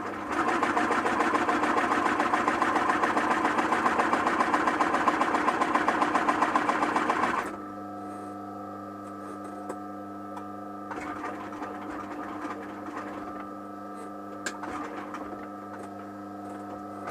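Electric sewing machine stitching leather in one fast, even run of about seven seconds, then stopping abruptly. A steady hum carries on afterwards, with a few light clicks.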